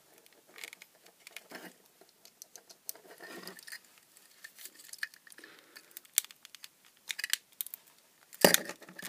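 Small screwdriver prising apart the glued ends of a plastic LED-tube driver housing: scattered clicks, scrapes and creaks of plastic, ending in a loud crack about eight and a half seconds in as the glue gives way.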